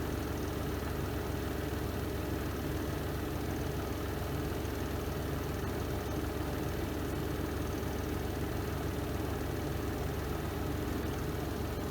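Renova semi-automatic twin-tub washing machine's spin drum running at speed in the spin cycle: a steady, even motor hum and whir.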